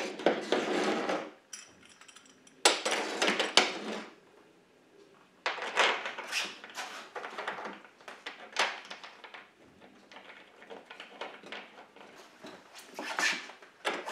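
Shop-made trolleys, steel brackets on pressed-on ball bearings, sliding and rolling in a steel Unistrut channel overhead. They make several bursts of rattling, scraping metal clatter with short quiet gaps between them.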